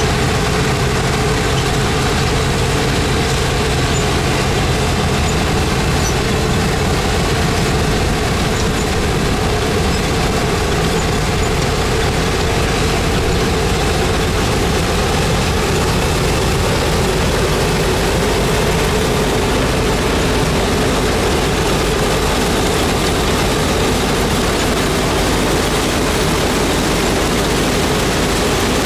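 DON-1500B combine harvester running steadily under load while harvesting wheat: its engine and working machinery make a constant, even noise.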